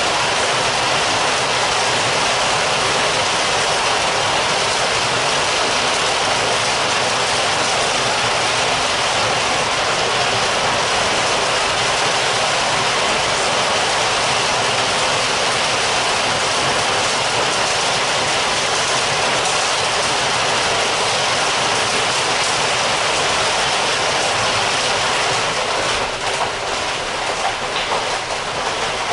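Heavy rain heard from indoors: a dense, steady hiss of rainfall. Near the end it eases slightly and turns more uneven, with separate drops pattering through.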